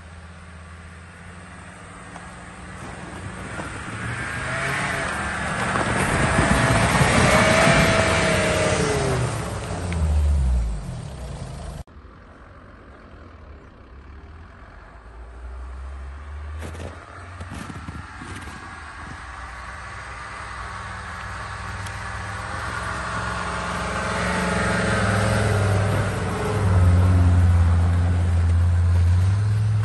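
Mercedes-Benz 290 GD's five-cylinder diesel engine working through snow as the vehicle drives towards and past the camera, its note rising and falling as it builds to a peak. The sound cuts off abruptly about twelve seconds in, then builds again to a deep, loud drone as the vehicle passes close near the end, with a few short knocks along the way.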